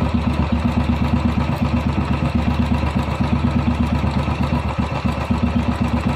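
Royal Enfield single-cylinder four-stroke engine idling steadily with an even, rapid beat.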